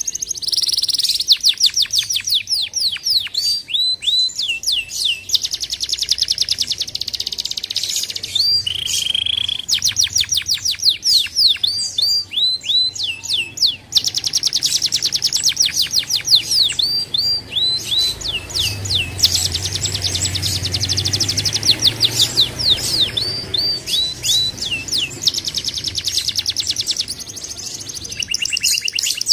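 Domestic canary singing a long, continuous song of fast trills and rolls, with phrases of repeated downward-sweeping notes.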